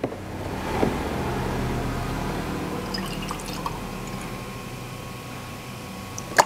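Fresh milk poured from a carton into a milk pitcher: a steady stream that slowly eases off. A short sharp click comes near the end.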